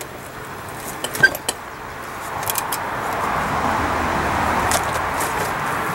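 A few light metallic clicks and a small ping as a hot steel cable is twisted in a vise. From about two seconds in, a steady rushing noise swells up and holds.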